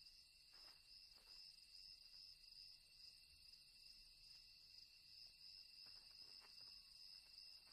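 Faint night ambience of crickets trilling steadily and continuously, with a few soft ticks.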